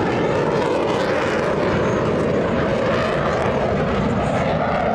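Blue Angels F/A-18 Super Hornet jets passing overhead, their engines making a steady, loud jet noise with no breaks.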